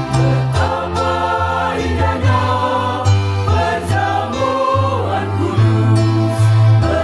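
Mixed choir of men's and women's voices singing a hymn in parts, accompanied by an electronic keyboard holding sustained bass notes that shift every second or so.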